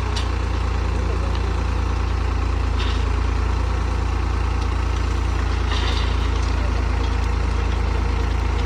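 Heavy diesel engine of a backhoe loader or tractor running steadily, a deep even drone, with a couple of faint knocks over it.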